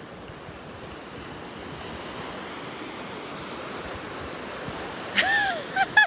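Ocean surf washing steadily onto a sandy beach, with wind buffeting the microphone. About five seconds in, a short, louder voice cuts in with a few rising-and-falling sounds.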